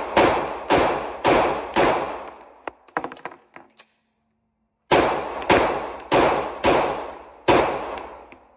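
P320 pistol in a Flux Raider chassis firing two strings of shots at a steady pace of nearly two a second, four shots then five, each with a long echoing decay in the enclosed range bay. Between the strings come a few light clicks and a short pause.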